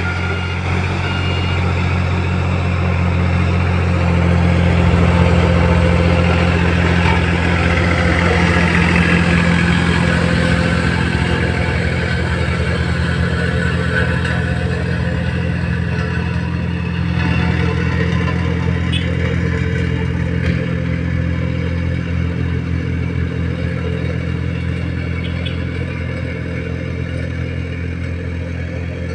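A motor engine running steadily with a low hum, a little louder from about four seconds in and easing off slowly toward the end.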